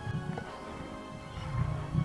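Background music with long held tones, over irregular low growling from lions feeding on a carcass.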